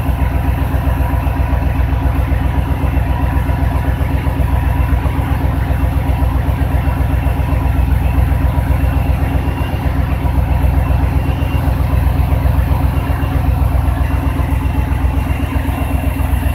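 1999 Cadillac Seville STS's Northstar V8 idling steadily with an even pulse while it warms up from a cold start.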